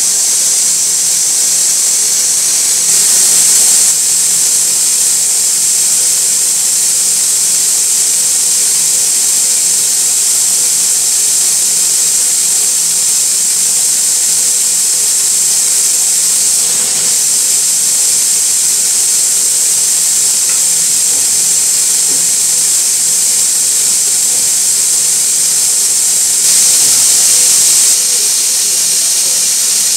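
CNC nylon tube bending machine running, with a steady loud air hiss and a faint steady hum under it; the hiss surges louder briefly about three seconds in and again near the end.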